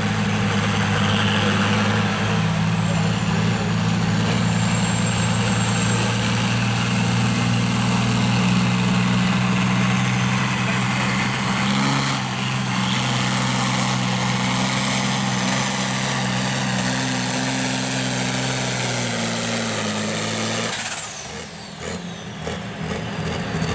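John Deere diesel tractor pulling a sled at full throttle: a steady, loud engine drone with a high whistle slowly climbing in pitch. About 21 seconds in the engine sound drops away sharply as the pull ends.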